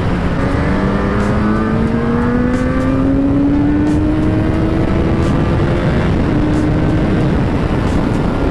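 Yamaha motorcycle engine pulling hard at highway speed, its note climbing steadily for about five seconds, then dropping slightly and holding, under heavy wind rush at speed.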